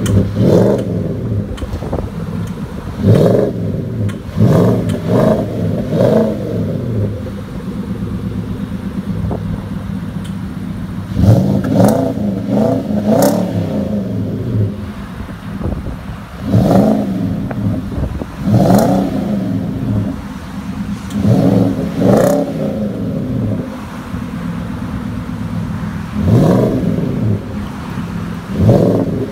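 2017 Nissan Titan Pro-4X's 5.6-litre V8 idling through a Flo-Pro Max true dual exhaust with quad tips. The throttle is blipped again and again, sometimes three or four times in quick succession, and the engine drops back to a steady idle between revs.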